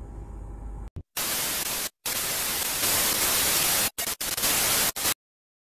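Loud static hiss in several stretches, starting and stopping abruptly with short dead-silent gaps between them, then cutting out a little after five seconds.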